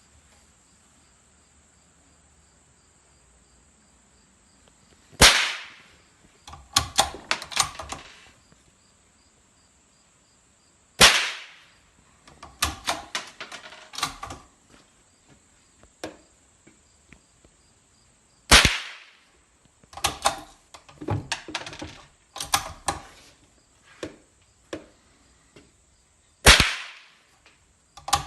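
Four sharp shots from a Scorpio EM332A bolt-action .22 LR rifle firing CCI Mini Mag 40-grain rounds, spaced about six to eight seconds apart. After each shot comes a run of metallic clicks as the bolt is worked to eject the case and chamber the next round.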